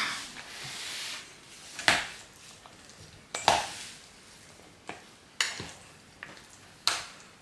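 A spoon scraping and knocking against a bowl as a salad is stirred: a scrape at the start, then about five sharp clinks a second or so apart.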